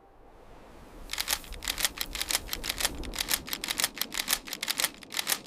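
A rapid run of sharp, dry clicks, several a second, starting about a second in over a faint hiss.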